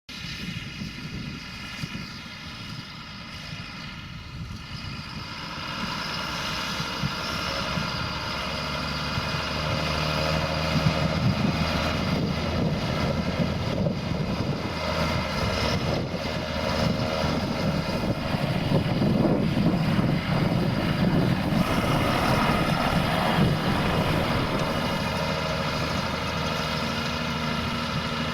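John Deere 6520 tractor's diesel engine working under load while ploughing, growing louder over the first ten seconds and then running steadily.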